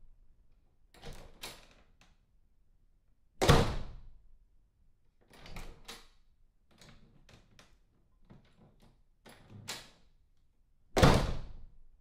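A door swinging shut with a heavy thud twice, about three and a half seconds in and again near the end. Between the thuds come runs of small sharp clicks as the latch and lock are worked.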